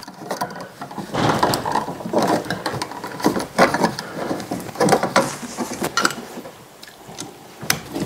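Irregular clicks, rattles and scraping of plastic and metal as a duplex wall outlet, wires folded behind it, is pushed into its electrical box and its mounting screws are started by hand. The handling eases off near the end, with one sharp click.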